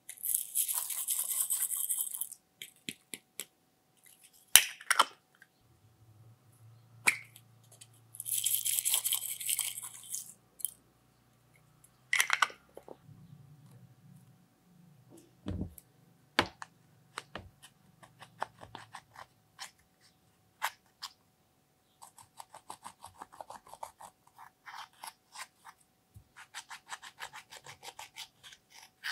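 Glitter poured from a small plastic pot into a glass dish, in two loud bursts, with clicks and taps of plastic containers being handled in between. From about two-thirds of the way in, rapid scratching as pressed eyeshadow is scraped out of its palette pans with a small tool.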